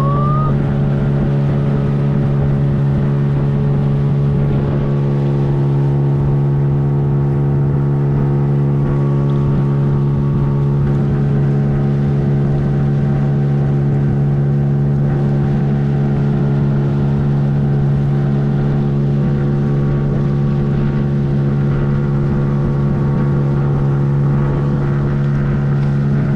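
Boat engine running steadily at a constant speed, a loud, even drone with no change in pitch.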